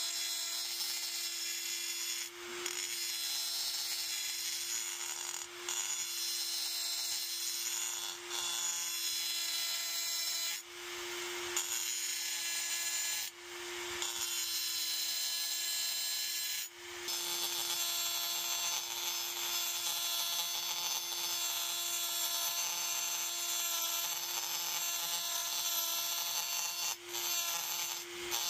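Dremel rotary tool running at a turned-down speed with a steady whine, its grinding bit cutting into the aluminium rifle chassis. The sound drops for a moment every few seconds.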